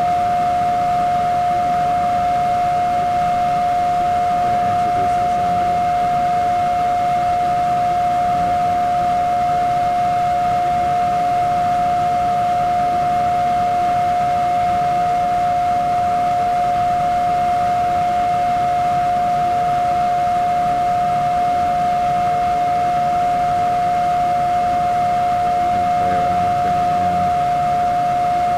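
Intentional digital feedback loop in Ableton Live, with audio fed back through delay and pitch effects, ringing as one steady whine held at a single pitch with fainter overtones, at a constant loud level.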